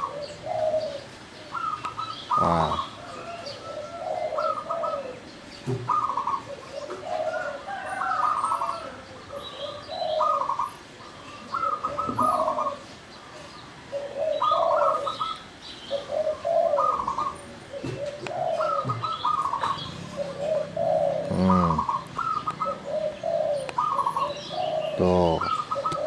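Caged doves, perkutut (zebra doves) and tekukur (spotted doves), cooing in repeated, overlapping phrases, one set higher-pitched than the other, with sparrows chirping faintly above them. The doves are in full song, calling on their own without a rival.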